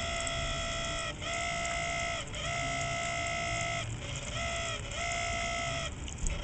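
Small solar-powered water fountain pump making a high-pitched squealing whine with several overtones. It breaks off and dips in pitch briefly about every second, then picks up again. The noise comes from its magnet-carrying plastic impeller disc spinning against plastic with no bearings, and WD-40 has not cured it.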